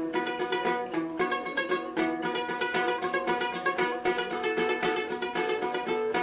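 Instrumental music led by a plucked string instrument picking quick, even notes over held tones.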